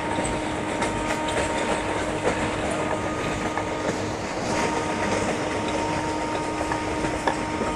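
Indian Railways express passenger coach running at speed, heard from its open doorway: a steady rushing rumble of wheels on rail, with scattered clicks as the wheels cross rail joints and a thin steady whine running through it.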